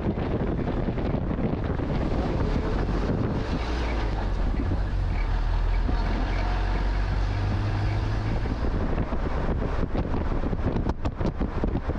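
Wind buffeting the microphone of a moving road vehicle over the steady low rumble of its engine and tyres on the road.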